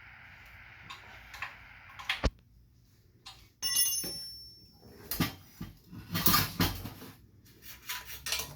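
Metal tools and small metal bike parts clinking and clattering in short knocks, with a brief high metallic ring about four seconds in.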